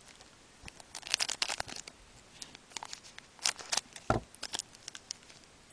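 Foil trading-card pack wrappers crinkling in bursts as hockey card packs are handled and opened, with a single dull thump about four seconds in.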